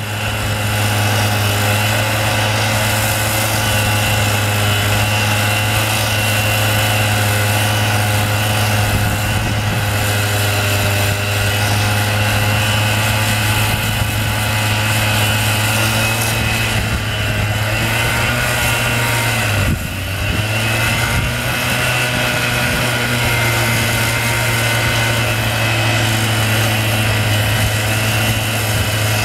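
Handheld abrasive disc cutter grinding into a steel rail during rail destressing work, running steadily with a high, even drone. About twenty seconds in it briefly sags in level and pitch, then picks back up.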